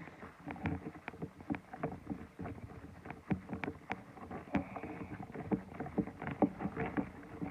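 Glue slime being stirred in a bowl as activator is worked in: a steady run of irregular wet squelches and small clicks.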